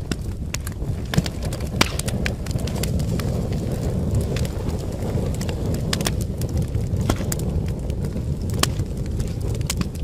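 Wood fire in a fireplace crackling, with irregular sharp pops over a steady low rumble; a few louder pops about a second and two seconds in and again near the end.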